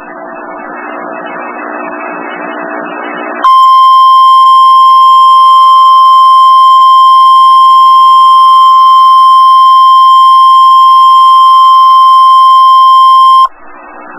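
NOAA Weather Radio's 1050 Hz warning alarm tone: one loud, steady, unbroken beep held for about ten seconds, marking the start of an emergency alert broadcast. Radio hiss fills the seconds before it comes on, and the hiss returns when the tone cuts off sharply near the end.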